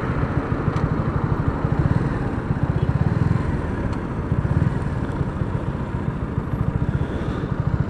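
Suzuki Gixxer SF 250's single-cylinder engine running steadily with an even pulsing as the motorcycle rolls at low speed.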